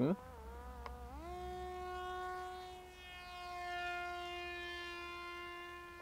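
Parrot Disco drone's electric propeller motor whining in flight. The pitch rises sharply about a second in, then holds steady while the whine grows louder and fades twice as the drone passes.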